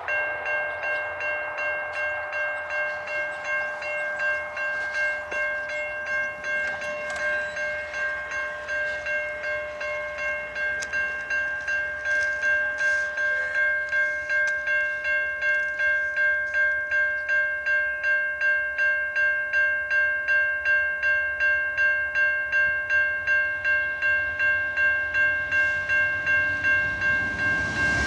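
Level-crossing warning bell ringing at about two strikes a second, steadily growing a little louder: the crossing is activated for an approaching train.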